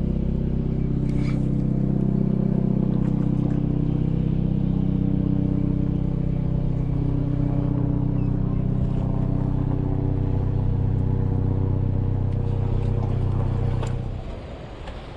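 An engine running in a steady low drone of several pitched tones, which cuts off sharply about fourteen seconds in.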